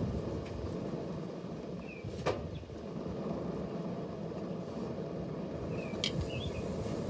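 Steady low rumble of wind on the microphone, with two short, sharp sounds about two and six seconds in and a few brief bird chirps.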